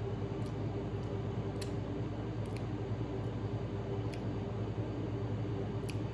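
A steady low mechanical hum, with five faint small clicks spread through it.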